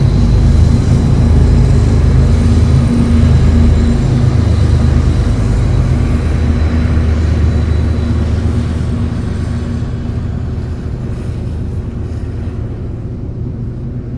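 Double-stack freight train rolling past: a loud, steady low rumble with a held low drone, fading gradually over the second half.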